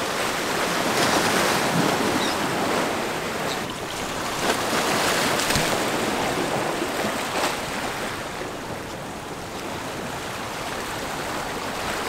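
Surf breaking and splashing against the stone blocks of a rock jetty, washing in and out. It swells louder about a second in and again around four to six seconds in.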